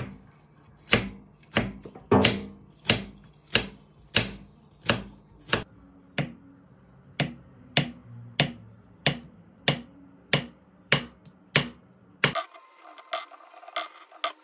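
Kitchen knife chopping green onion and then tofu on a wooden cutting board: steady strikes, about one and a half a second. A little after twelve seconds the chopping stops and a few lighter taps follow as slices of Spam and tofu are laid into a nonstick frying pan.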